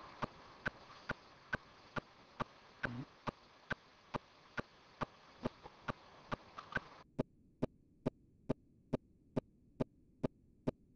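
Evenly spaced sharp clicks, a little over two a second, keeping a steady beat over a faint hiss that cuts off about seven seconds in.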